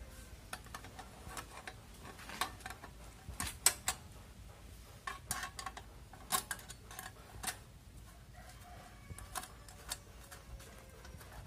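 Irregular metallic clicks and clinks of a 10 mm ring spanner working the licence-plate bolts on a Honda C70 as they are loosened and taken out, the loudest cluster a few seconds in.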